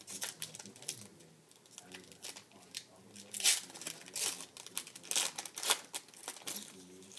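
A trading-card pack wrapper being torn open and crinkled by hand, heard as a quick, uneven series of rips and crackles.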